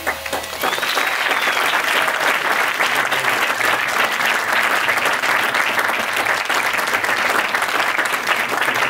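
Audience applauding at the end of a small jazz band's piece; the clapping swells in just under a second in and stays steady and dense.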